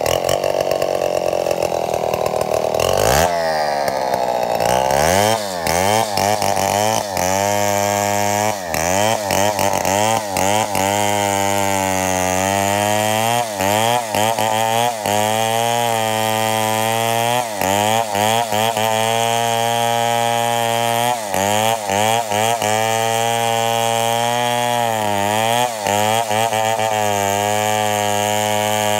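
Two-stroke chainsaw engine running high for about three seconds, then dropping sharply and settling into an uneven run whose speed repeatedly sags and picks back up, often about once a second. This is the intermittent cutting-out ('putol-putol') that the owner wants diagnosed.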